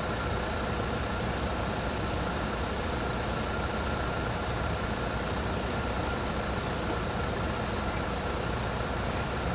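Steady mechanical hum under an even hiss, with a faint high steady tone; it doesn't change.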